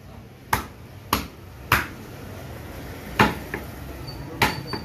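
Meat cleaver chopping beef on a thick wooden chopping block. Sharp chops: three about half a second apart, then after a short gap two more strong chops with fainter knocks between.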